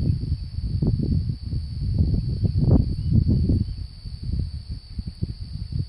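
Wind buffeting the microphone in uneven gusts, with a steady thin high-pitched drone behind it.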